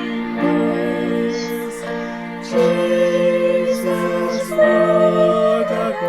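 Slow, gentle music of held notes, changing every second or so.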